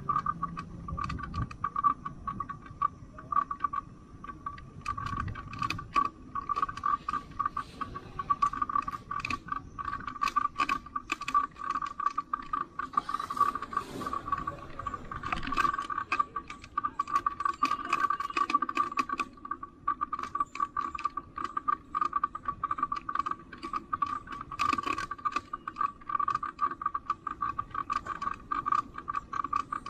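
Bicycle freewheel ratcheting, a dense rapid clicking, with mechanical rattling from the bike, over a steady whine.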